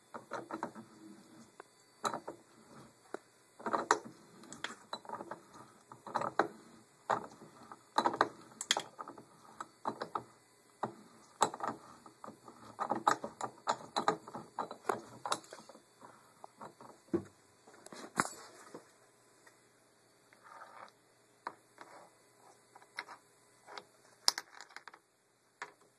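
Irregular metallic clicks, clinks and knocks from steel and aluminium parts in a machine vise being worked by hand to press a bearing. The clicks come in clusters of several a second, with a quieter stretch near the end.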